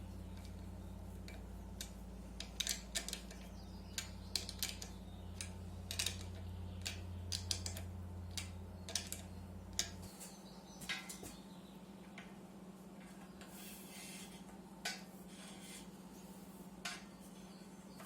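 Light metallic clinks and taps of small metal parts or tools being handled, frequent at first and sparser later, over a steady low hum whose deepest part cuts off suddenly about ten seconds in.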